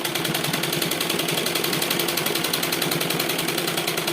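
Sewing machine running steadily at speed, a rapid even clatter of needle strokes over a low hum, stitching smoothly now that it has been cleaned and reassembled.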